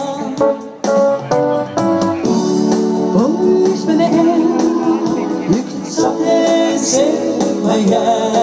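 Live pop song played on an electronic keyboard with a programmed drum beat, amplified through PA speakers, in an instrumental stretch between sung lines.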